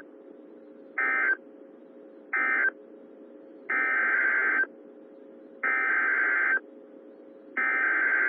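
Emergency Alert System digital data bursts, harsh buzzy chirps: two short bursts (the end-of-message code), then three longer bursts about a second each, about a second apart (the SAME header that opens the next alert).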